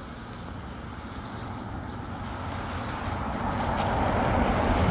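A car approaching along a wet road, its engine and tyre noise growing steadily louder toward the end.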